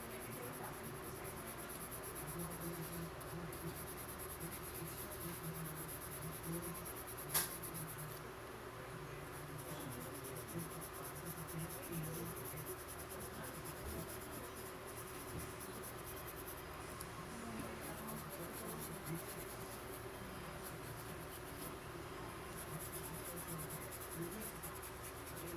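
Paintbrush bristles scratching across paper, drybrushing soft pastel onto a drawing, with one sharp click about seven seconds in.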